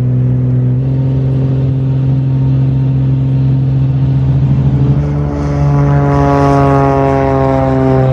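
A Beechcraft A36TC Bonanza's turbocharged six-cylinder engine and propeller run steadily at take-off power, heard from inside the cockpit. About five seconds in, the same engine is heard from beside the runway as the plane passes, its pitch falling.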